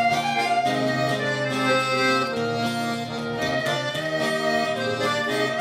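Instrumental traditional dance tune led by a diatonic accordion: a melody of held notes over a steady bass, with no singing.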